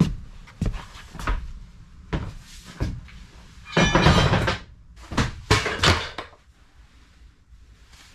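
Heavy work boots thudding up the rubber-matted steel entry steps of a bus, a step about every half second, followed by two longer clattering, rustling noises in the middle before it goes fairly quiet.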